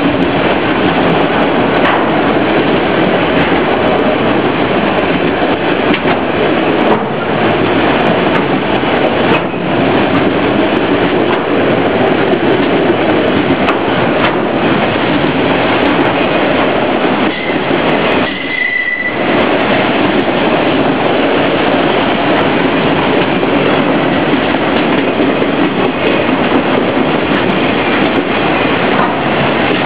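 Autorack freight train rolling past: a steady, loud rush of wheel and car noise on the rails, dipping briefly about two-thirds of the way through.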